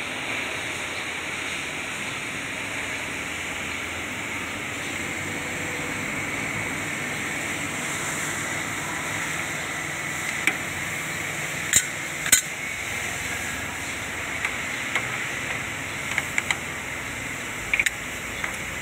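Sharp metallic clinks and knocks of a tractor PTO driveshaft's universal joint being handled and fitted against steel parts. They begin about halfway in, with the loudest pair a little before two-thirds in, over a steady background hiss.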